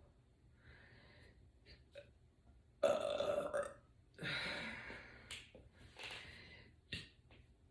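A woman burping up gas from carbonated sparkling water: a few burps, the two loudest about three and four seconds in, then a weaker one.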